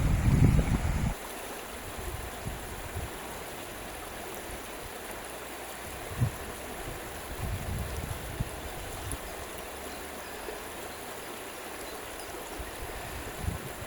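Running water of a stream, a steady even rush. A low rumble in the first second cuts off suddenly.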